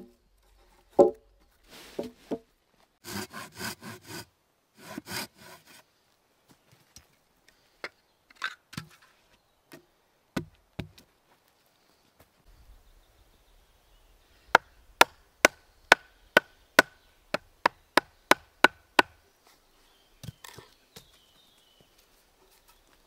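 Wood being worked by hand for a raised camp bed: two short runs of rasping strokes, then a series of about a dozen sharp wooden knocks, about two a second, each ringing briefly, and a few more knocks near the end.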